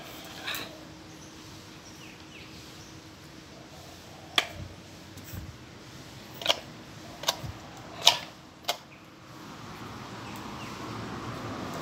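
A dog playing with a yellow rubber toy on a tiled floor: about six sharp clicks and knocks, scattered through the middle, the loudest around eight seconds in. Background noise rises near the end.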